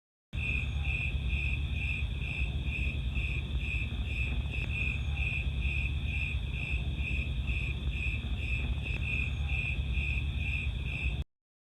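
Crickets chirping in an even rhythm, about two to three chirps a second, over a steady low rumble. The sound cuts in and out abruptly.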